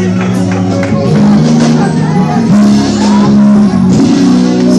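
Slow gospel music with held low chords that shift pitch a few times.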